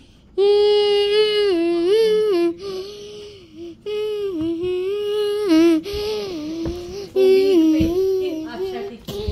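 A child humming a tune in phrases of held notes that step up and down, with short breaks between phrases.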